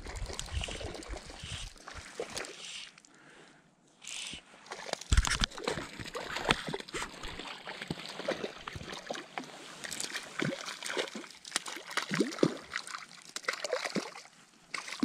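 Water splashing and sloshing in short irregular bursts, mixed with sharp clicks and knocks, after a low rumble of wind on the microphone in the first two seconds.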